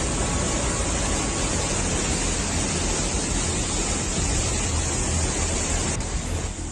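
Steady rushing noise of fast-moving water, dipping slightly near the end.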